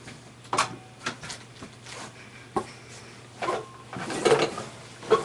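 A person moving about a small room and handling things: scattered light knocks and thumps, with a stretch of rustling near the end.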